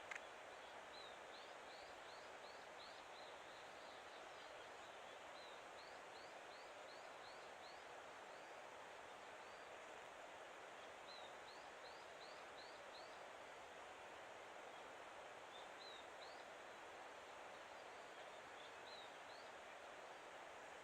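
Faint steady outdoor background hiss with a bird calling in runs of short, high, rising notes, about three a second, several runs and a few scattered single notes.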